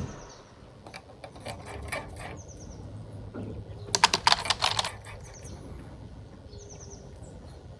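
A small bird calling repeatedly, each call a quick run of four or five high chirps. Scattered sharp clicks and rattles come in between, bunched together about four seconds in.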